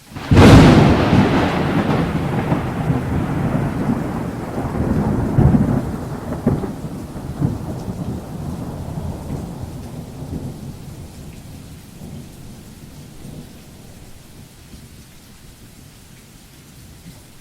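Thunder sound effect: a sudden loud crack about half a second in, then a long rolling rumble with a few more surges, fading away over about ten seconds over a steady hiss of rain.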